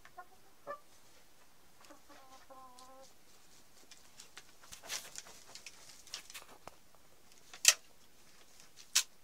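Chickens clucking: a short call, then a drawn-out call lasting about a second. After that come scattered light ticks and scratches, and two sharp knocks near the end, the loudest sounds.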